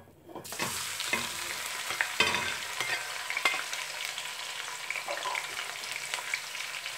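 Sliced onions tipped into hot vegetable oil in a pot, bursting into a sizzle about half a second in and then frying steadily. Scattered clicks and knocks come from the spoon pushing the onions off the plate and into the pot.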